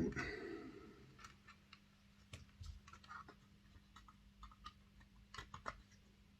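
Faint, irregular clicks and taps of cocktail sticks being pushed into the plastic body clips of a model locomotive to prise its body off, over a faint steady hum.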